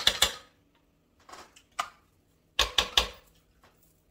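Hand food-prep on a raw carrot: short clusters of sharp scraping and knocking strokes. There are a few strokes at the start, two single ones in the middle, and a louder cluster with a couple of dull knocks after halfway.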